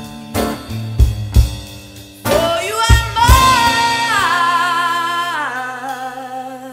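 Live band music with a woman singing: drum hits, then a long held note with vibrato that steps down in pitch twice as the music fades toward the end.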